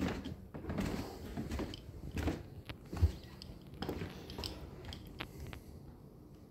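Footsteps coming down carpeted stairs and onto a wooden floor: a string of soft, uneven thuds about every half second, thinning out near the end.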